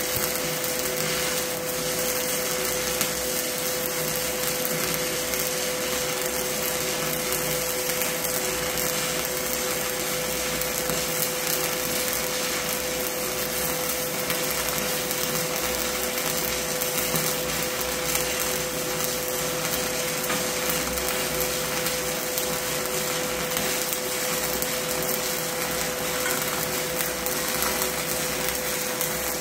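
Stick (SMAW) welding arc burning on steel, crackling steadily without a break, with a steady hum underneath.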